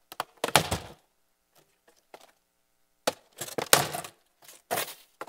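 Empty cardboard boxes being handled and set down on a stage floor: a few loud thumps and scrapes of cardboard, in two clusters about two seconds apart.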